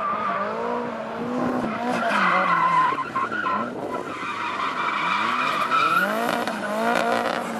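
A drift car sliding sideways past, its tyres squealing loudly from about two seconds in until about six seconds in. Its engine revs up and down throughout, with quick rising revs near the end.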